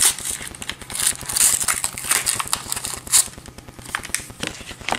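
Close handling noise of small cosmetic packaging: irregular rustling, scraping and crackling, with sharper scrapes about a second and a half and three seconds in.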